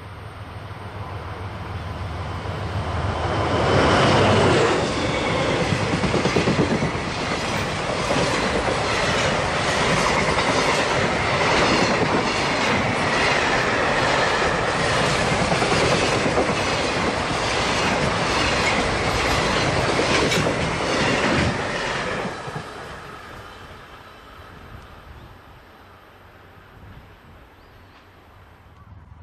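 JR Freight DF200 diesel-electric locomotive approaching and passing, loudest about four seconds in. A long string of container wagons follows with a steady, rhythmic clickety-clack of wheels over the rail joints. The sound dies away after about 22 seconds as the end of the train goes by.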